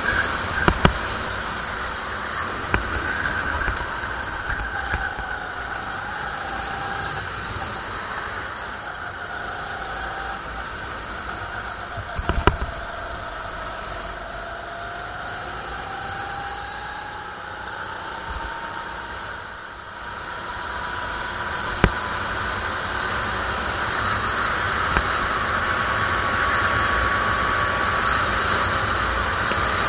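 A CRG rental kart's 270cc four-stroke engine running under way, heard from onboard, its note climbing slowly through the second half, with a brief dip about two-thirds through. Steady wind hiss on the microphone, and three sharp knocks: one at the start, one near the middle and one about three-quarters through.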